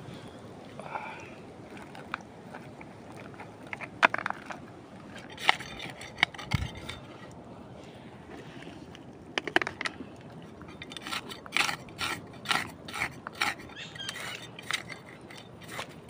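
Footsteps through wet mud among mangrove roots, about two steps a second in the last few seconds, with scattered clicks and knocks before that.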